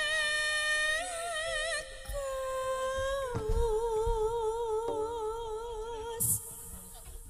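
A sinden, a female Javanese gamelan singer, holding long sung notes with wide vibrato, stepping to a new pitch a few times, with a few low thumps underneath.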